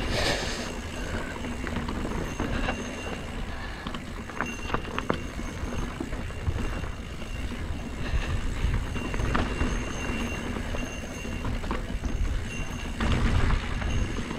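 Mountain bike rolling along a dirt singletrack heard from a bike-mounted action camera: a steady rumble of tyre noise and wind on the microphone, broken by scattered clicks and rattles as the bike goes over rough ground.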